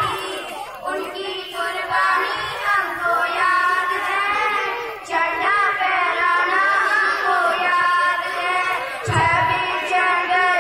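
Children singing a song together in high voices. A short low rumble comes about nine seconds in.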